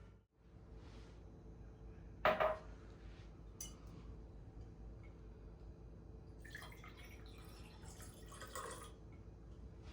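Kitchenware being handled: one sharp clink about two seconds in, a small click a second later, then a few seconds of light scraping and rustling over a faint steady hum.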